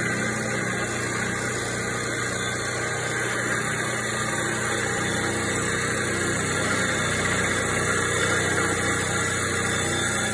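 Vertical milling machine running steadily, its motor and spindle humming as the cutter faces the cast-iron cylinder head of a Fairbanks Morse engine.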